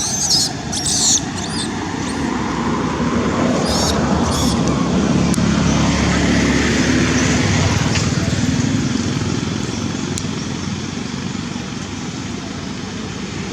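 A motor vehicle passing by, its engine rumble building to a peak in the middle and then fading, over steady outdoor noise. A few short, sharp rustling noises come early on.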